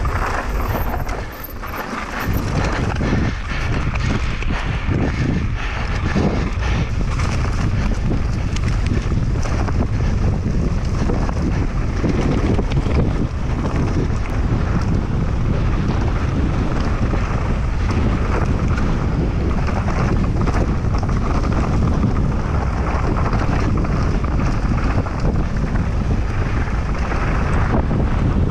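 Heavy wind buffeting on an action camera's microphone at mountain-bike downhill speed, over the rumble of knobby tyres on a dirt trail. Short knocks and rattles come through as the bike runs over rough ground, and the level dips briefly about a second in.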